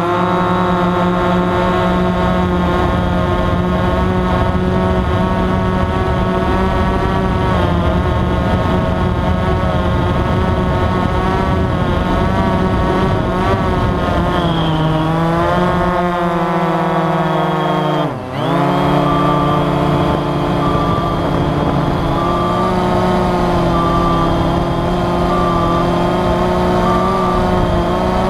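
AirDog quadcopter drone's motors and propellers humming, a steady multi-tone whine heard from the drone's own camera, its pitch wavering with throttle changes and dropping sharply for a moment about eighteen seconds in before coming back up.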